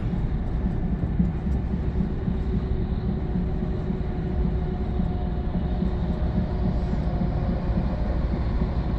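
Steady low rumble from inside the cab of a Scania truck cruising on a highway: engine drone and road noise, with a faint steady hum above it.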